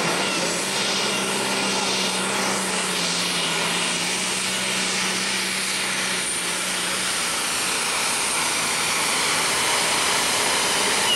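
A Ford Super Stock pulling tractor's turbocharged diesel engine running flat out under full load as it pulls a weight-transfer sled. It makes a steady, loud roar.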